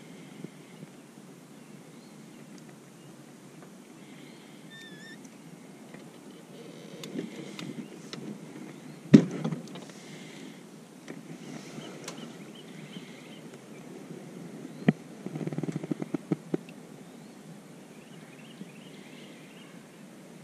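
Occasional knocks and rattles from handling fishing tackle in a small boat: one sharp knock about nine seconds in, another near fifteen seconds, then about a second of quick small clicks. Birds chirp faintly in the background.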